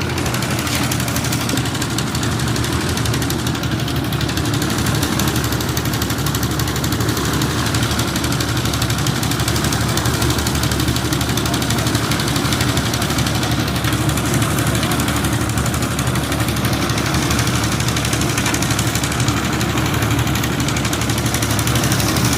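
An engine on construction machinery running steadily at an even speed, with a fast low chugging pulse.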